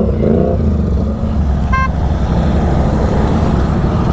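Superbike engine running steadily while riding, a low continuous drone, with one short horn beep a little under two seconds in.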